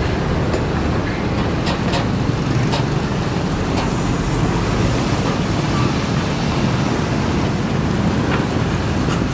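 Matador ME210LC-1 excavator's diesel engine running steadily under load as it lifts and swings a bucket of soil, with a few short, sharp clanks from the bucket and boom.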